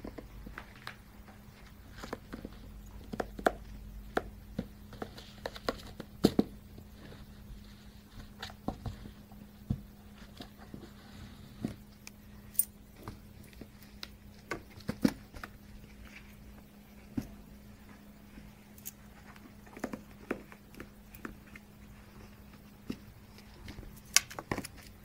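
A cat wrestling and biting a catnip toy while rolling on the floor: irregular clicks, taps and soft thumps, a few of them sharp and loud.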